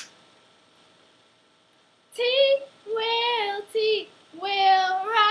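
A woman singing unaccompanied. A single hand clap at the start, about two seconds of quiet, then three sung phrases with held notes.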